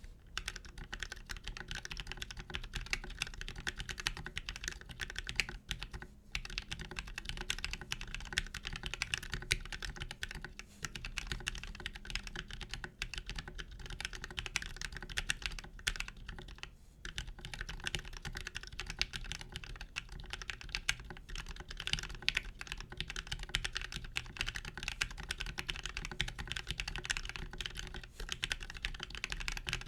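Fast, continuous typing on a plateless 60% ortholinear mechanical keyboard with lubed Gateron Yellow linear switches, filmed switches and PBT keycaps: a dense clatter of keystrokes, broken by a few brief pauses.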